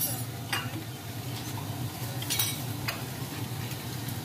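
A few sharp clinks and scrapes of a metal ladle and utensils against ceramic bowls and a pot at a noodle stall, the longest about halfway through, over a steady low hum.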